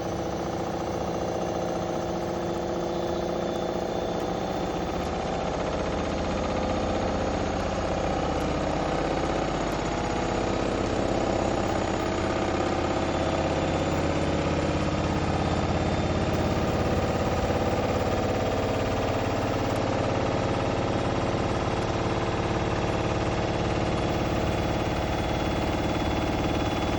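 Bosch WAK28261 washing machine spinning, a steady machine whine with a rapid rhythmic knocking from the drum, building over the first several seconds and then holding. The knocking is the sign of a drum spider on the verge of snapping.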